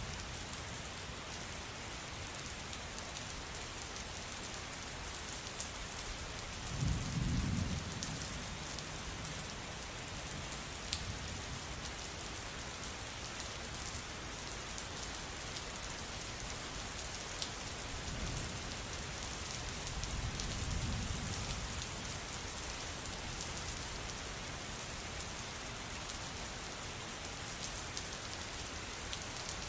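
Steady rain falling, with low rumbles of thunder about seven seconds in and again from about eighteen to twenty-two seconds.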